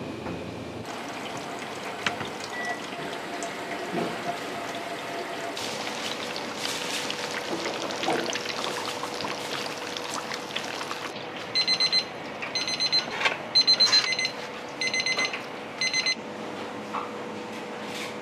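Electronic kitchen timer alarm beeping in groups of rapid beeps, about one group a second for several seconds in the second half. Underneath are running water and occasional knocks of kitchen work.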